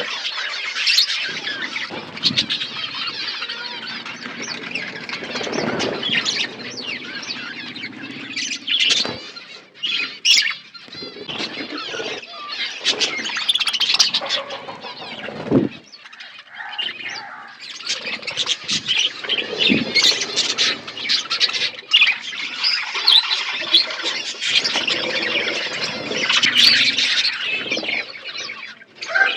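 A flock of budgerigars chirping and chattering without a break, with scattered short clicks among the calls.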